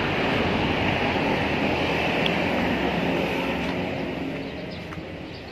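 A motor vehicle passing by on the road, loud at first and fading away over the last couple of seconds.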